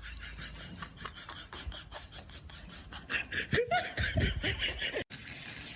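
A person laughing in a run of short bursts starting about three seconds in, cut off abruptly near the end.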